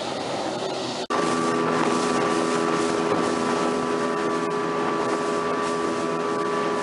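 Water and wind rushing as a boat runs hard through spray; after a sudden break about a second in, a motorboat engine running steadily at speed, a constant drone with a steady whine over the rush of water and wind.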